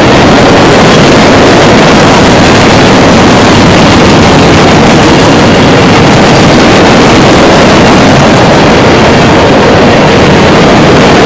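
CSX freight train rolling past close by: a loud, steady rush of wheels and cars with no break.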